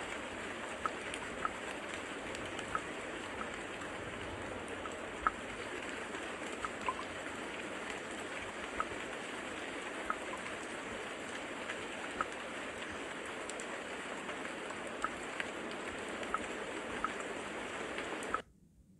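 Water-sounds ambience of a Samsung QLED TV's Ambient Mode 'Water' scene: a steady wash of water with small drops plinking about once a second, cutting off suddenly near the end.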